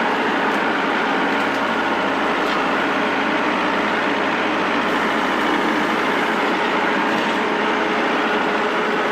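Farm tractor engine running steadily with no change in speed.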